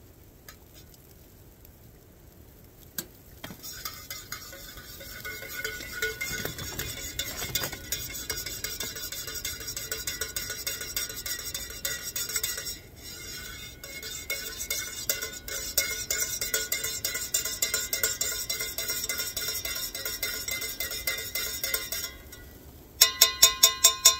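A metal spoon stirring a cup of coffee: rapid, continuous clinking against the mug, which rings faintly. About a second before the end the clinking turns into a run of louder, evenly spaced ringing taps, about six a second.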